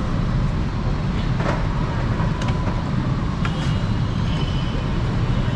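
Steady low rumble with about three sharp metal clanks, roughly a second apart, as a hinged egg waffle iron is shut over its batter and flipped on the burner.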